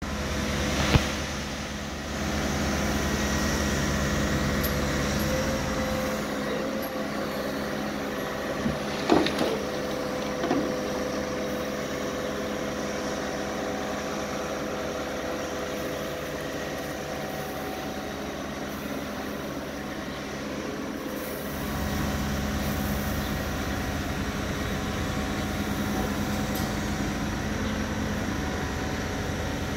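Tracked hydraulic excavator's diesel engine running steadily as it hoists a buried fuel tank out of its pit on a chain. Its low rumble eases about six seconds in and comes back strongly a little past twenty seconds, with a few short sharp knocks near the start and around nine to ten seconds in.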